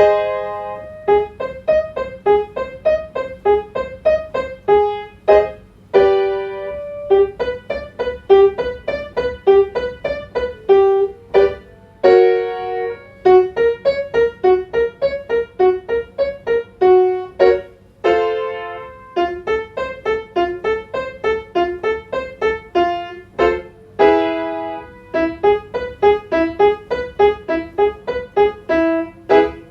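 Piano playing the accompaniment for a staccato vocal exercise: quick runs of short, detached notes, broken by a held chord about every six seconds as the pattern moves to a new key.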